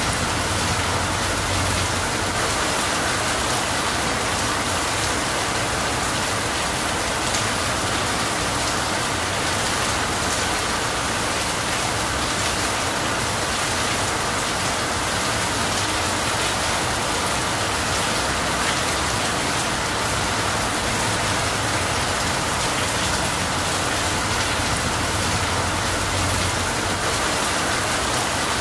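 Steady heavy rain pouring onto leafy trees, with water streaming off a roof edge.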